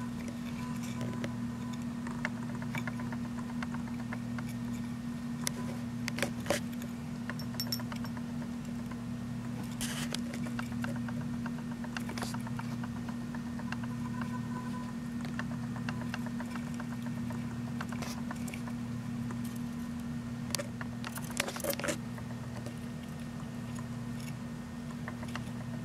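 Faint scattered clicks and rustles of a dwarf hamster nibbling seeds at its food dish and shifting on paper bedding, over a steady low electrical hum.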